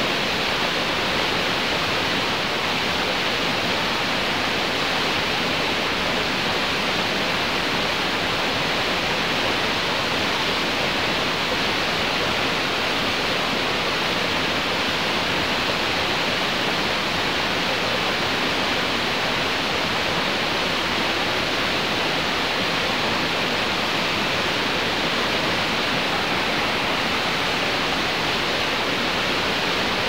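Waterfall: a steady, even rush of falling water that never changes.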